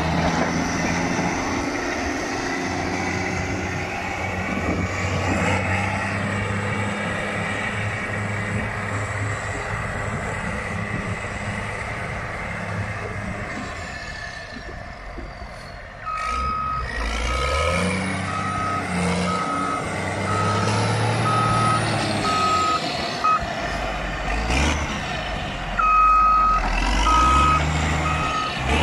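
Caterpillar 140 VHP Plus motor grader's diesel engine running while it grades a gravel road, revving up about halfway through as its reversing alarm starts beeping steadily. The beeping pauses briefly and resumes near the end.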